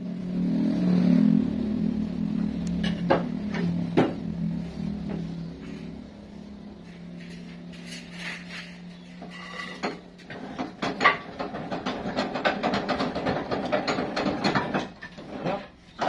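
Sawmill machinery running: a motor's steady low hum, loudest at first and fading away by about ten seconds in, with a couple of sharp knocks. After that comes busy clicking and clattering of wood and metal.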